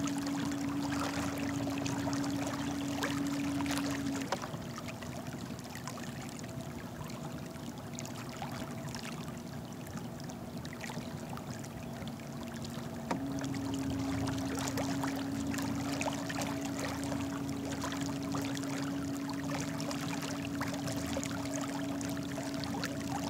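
Small electric trolling motor pushing a kayak, humming steadily; its hum drops lower about four seconds in and rises back about thirteen seconds in. Water rushes and trickles along the hull throughout.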